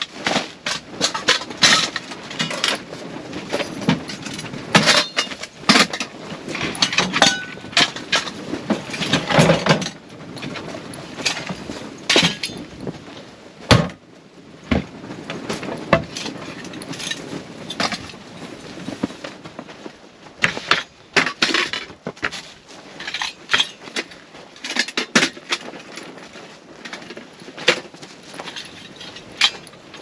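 Camping gear being handled and unpacked from a storage case: irregular clinks, knocks and rattles as items are lifted out and set down.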